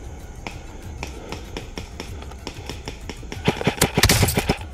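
Footsteps ticking lightly along a woodland trail, then an airsoft rifle firing a rapid string of sharp cracking shots from about three and a half seconds in at an opponent spotted in the brush.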